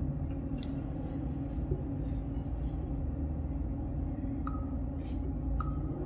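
Steady low background hum, with a few faint clicks and taps as a smartphone's touchscreen is tapped and the phone is picked up in the hand. Two brief, faint high blips sound near the end.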